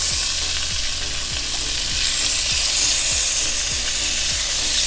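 Wahoo fillets frying in butter in a pan, with a steady sizzle as they sear.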